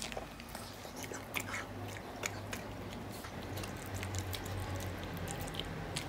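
A Yorkshire terrier eating spaghetti off a plate: wet chewing and biting, with irregular sharp clicks from its mouth.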